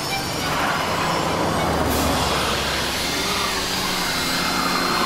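Engine sound effects of a car and motorbikes speeding along in a chase, a steady engine noise with no break.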